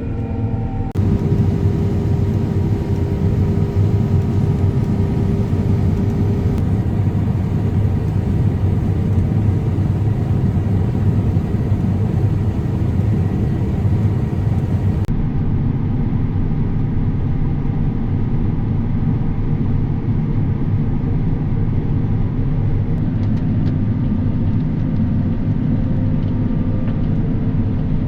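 Combine harvester running: a steady, loud, low machinery drone. Its character changes abruptly about a second in and again about halfway through.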